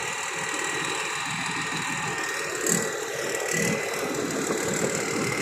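Rice combine harvester's engine running steadily, with a thin, steady high whine over it and a brief knock a little past halfway.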